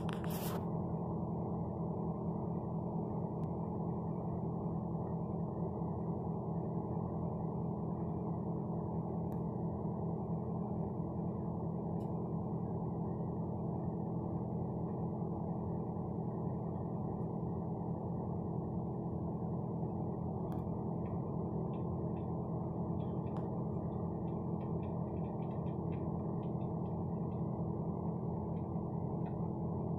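Engine and road drone from inside a moving vehicle's cab, recorded by a dashcam and played back through its small speaker: a steady low hum with no high end. A few faint clicks come in the last third.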